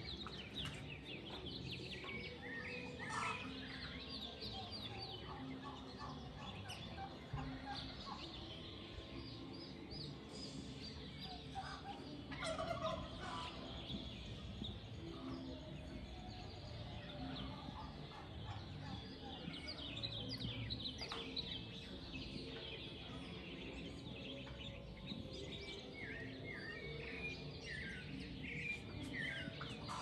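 Wild birds chirping and trilling in high, quick phrases, with a louder, lower-pitched burst of calls about twelve seconds in.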